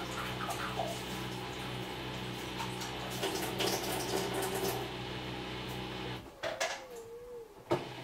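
Samsung EcoBubble front-loading washing machine tumbling a wash: the drum motor hums steadily while water sloshes in the drum. About six seconds in the motor stops for a moment between turns, with a couple of sharp clicks.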